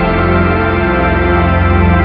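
Background music: slow ambient music of long held, sustained chords over a deep bass.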